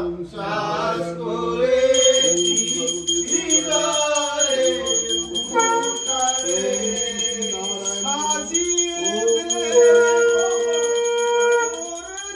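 A group of men singing a Bengali devotional hymn in unison, with a hand bell rung continuously from about two seconds in.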